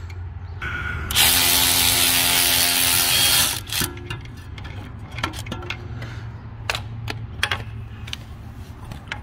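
A cordless battery ratchet runs in one burst of about two and a half seconds, starting about a second in, working loose a broken bolt that old sealant is holding in a coolant passage. Scattered metal clicks and taps of tools follow, over a steady low hum.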